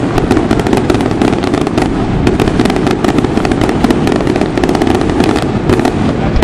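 Fireworks barrage: a continuous, dense crackle of small firecracker bangs, many a second, with no let-up.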